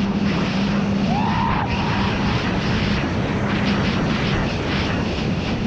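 Sea-Doo GTX 300 Limited personal watercraft running at speed, its supercharged three-cylinder engine giving a steady hum under heavy wind and water noise. A run of short slaps comes in the second half as the hull hits the chop.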